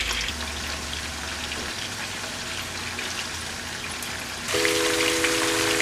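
Strips of seasoned jack crevalle sizzling and crackling in shallow hot oil in a frying pan. About four and a half seconds in the sizzle gets louder and a steady low hum of several tones comes in with it.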